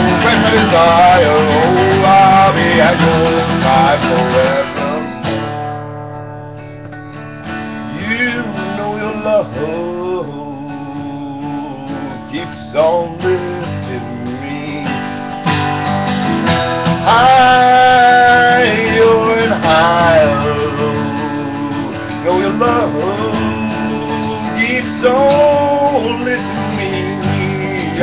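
Music: an acoustic guitar being strummed with a voice singing a melody over it; it drops quieter for a few seconds about five seconds in, then picks up again.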